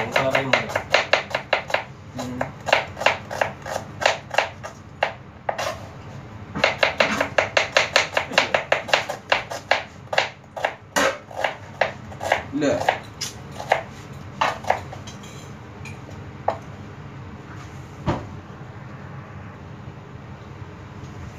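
Kitchen knife slicing red onions on a plastic cutting board: quick runs of blade taps, about four or five a second, thinning to scattered strikes after about ten seconds, with only an occasional knock near the end.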